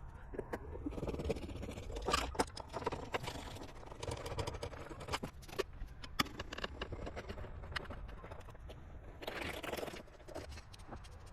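Screwdriver work on a plastic car airbox lid: irregular clicks, taps and scrapes as screws are driven snug and parts are handled.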